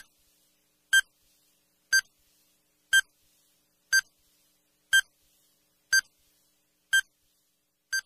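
Countdown timer sound effect: short, high electronic beeps once a second, about nine of them, with silence between.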